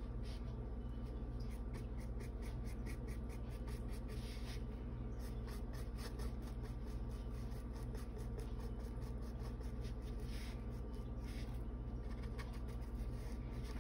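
Fine paintbrush dabbing and stroking acrylic paint onto a wooden panel: faint, repeated light scratchy strokes over a steady low hum.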